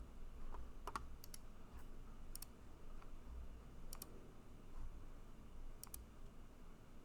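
A handful of separate, sharp clicks from computer keys or buttons, about five spread over several seconds, over faint room noise.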